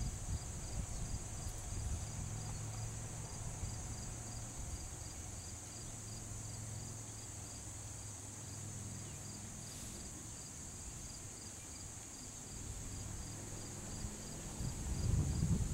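Field insects: a steady high-pitched buzz with a cricket chirping about twice a second. Wind noise on the microphone rises near the end.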